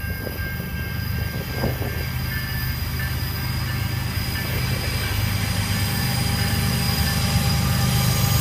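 Freight train wheels squealing on a sharp curve in several high, steady tones, over the low rumble of diesel locomotives that grows louder as they come close.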